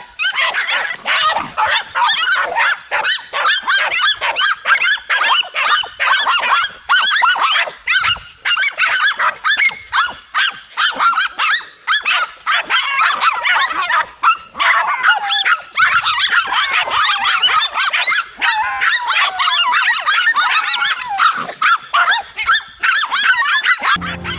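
Several small dogs barking and yapping nonstop at a cornered lizard, with many shrill, high-pitched barks overlapping.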